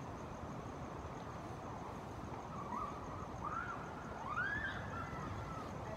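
Steady outdoor background rumble, like distant traffic. About halfway through come three short high calls that rise and fall in pitch, the last one the loudest.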